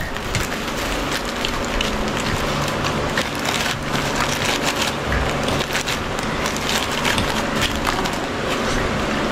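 Forks and spoons clinking and scraping on plates as people eat noodles, many small clicks over a steady hiss.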